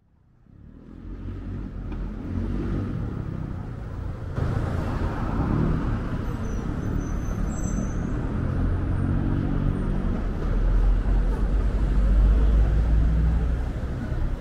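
Busy city street ambience fading in over the first second or so: road traffic going by with a heavy low rumble that swells about three-quarters of the way through.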